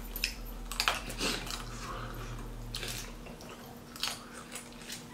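Seafood boil being eaten by hand at close range: wet, saucy squishing and chewing with several sharp clicks and cracks of shell.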